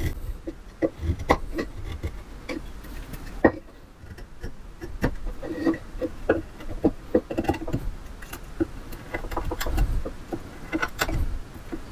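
Hand tools working a wooden dovetail joint: a run of irregular sharp knocks and clicks as material is taken off the edge of the joint.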